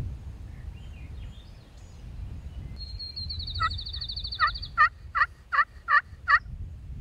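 Hunter's friction turkey call (pot call worked with a wooden striker) giving a series of about seven evenly spaced hen yelps in the second half. A songbird's fast high trill comes just before and under the first yelps, over low wind rumble.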